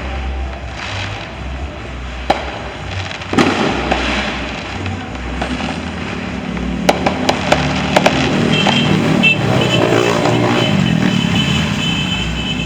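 Fireworks going off: a sharp bang about two seconds in, a stronger one a second later, then a quick run of five or six firecracker cracks about seven to eight seconds in, over a steady background rumble.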